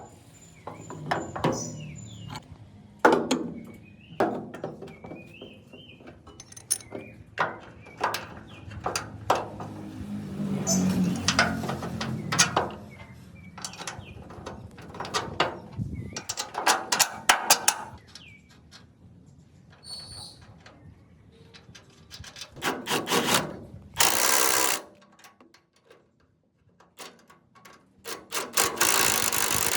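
Workshop handling sounds: scattered clicks and knocks of tools and parts, with short bursts of hissing noise near the end.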